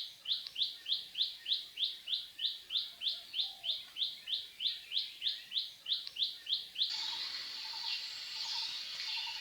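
A bird repeats a short, sharp high call about three times a second. About seven seconds in, this gives way abruptly to a dense, steady high chorus with a lower note repeating through it.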